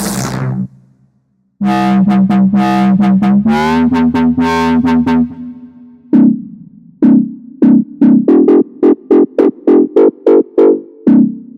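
Future Bass synthesizer presets playing: about a second and a half in, a few sustained, bright chords ring for about four seconds and fade, then a rhythmic run of short plucked synth chords starts, quickening to about three a second before stopping near the end.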